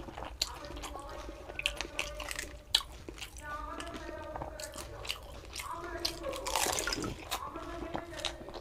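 A person eating panipuri (fuchka): the crisp puri shells crunching between the teeth, with chewing and wet mouth sounds, in a string of short sharp crunches.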